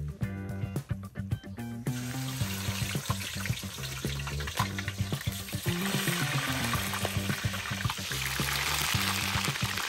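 Raw chicken thighs sizzling in hot oil in a steel wok: the frying hiss starts suddenly about two seconds in as the pieces go into the oil, and grows louder near the end. Background music plays underneath.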